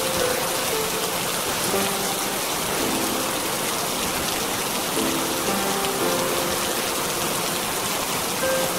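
Steady rain falling, an even rushing patter, with soft held music notes coming and going faintly beneath it.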